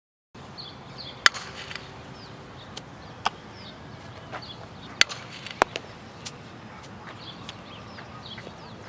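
Several sharp knocks from softball drills, the loudest about a second in and around five seconds in, over a steady outdoor background with birds chirping.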